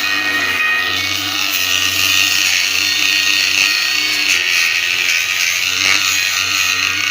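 Metal lathe running steadily while its cutting tool skims the friction face of a tractor clutch pressure plate, a constant hum under a bright, hissing cut.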